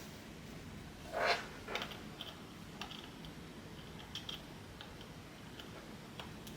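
Custom 65% mechanical keyboard with lubed and filmed MX Black HyperGlide linear switches on an FR4 plate under GMK keycaps, keys pressed one at a time: a louder, longer press about a second in, then a sparse scattering of single keystroke clacks.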